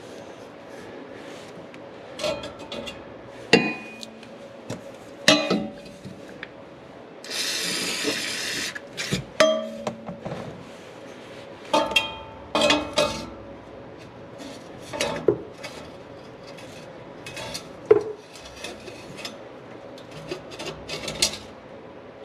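Hand tools and metal exhaust parts clinking, knocking and scraping during an axle-back muffler install, in a string of separate sharp clicks and knocks, with a harsh rasping noise lasting about a second and a half near the middle.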